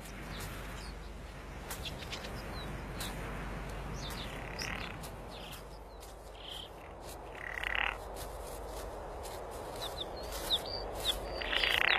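Birds calling outdoors: short, high chirps and calls come at irregular intervals, with scattered clicks over a steady low hiss.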